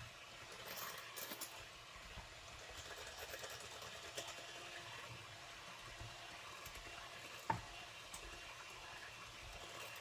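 Electric hand mixer running, its beaters whisking pancake batter in a glass bowl, with one sharp click about seven and a half seconds in.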